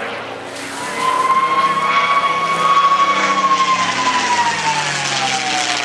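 North American P-51D Mustang's Merlin V-12 engine and propeller in a flying display, a loud steady note that swells about a second in and then slides down in pitch over the last few seconds.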